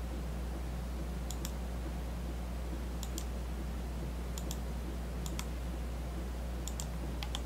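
Computer mouse clicking in quick pairs, five times, about every second and a half, over a steady low hum.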